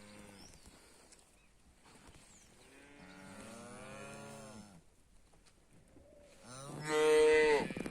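Dairy cows mooing: a faint, drawn-out moo about three seconds in, then a much louder moo near the end.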